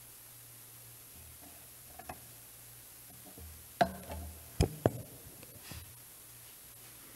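A few sharp knocks and bumps on a wooden lectern, picked up by its microphone as papers and items are handled, loudest in a cluster about four to five seconds in. A low steady hum runs underneath.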